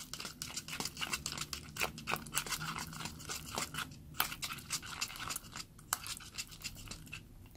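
Metal spoon stirring a thick gel of toothpaste and peel-off mask in a plastic cup: a quick, irregular run of wet squishing and clicking sounds.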